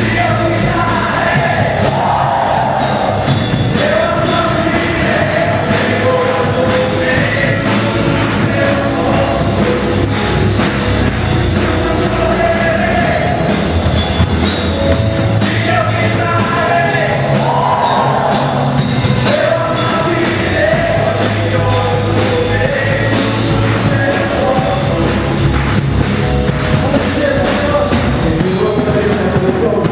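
Upbeat gospel praise song in a rock style: voices singing over a band, with a drum kit keeping a steady driving beat.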